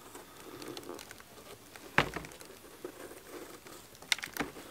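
Knife paring the thick, firm stem of a large black bolete: soft shaving scrapes, with a sharp click about two seconds in and a few more near the end.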